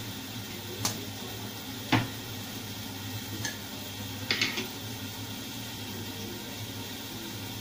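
Light clinks and knocks of kitchenware against a porcelain bowl: a single clink, a louder one about two seconds in, another, then a quick cluster of clinks near the middle, over a steady low hum.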